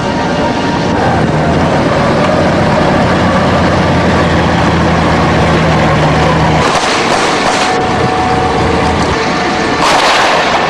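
Heavy armoured-vehicle engine running steadily, cut off about six and a half seconds in by a loud burst of noise lasting about a second; a second, shorter loud burst comes near the end.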